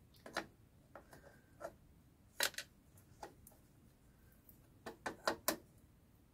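Light clicks and knocks of small metal parts and a spanner being handled as switches are fitted into a motorcycle headlamp shell. They come singly at uneven gaps, with a quick run of four near the end.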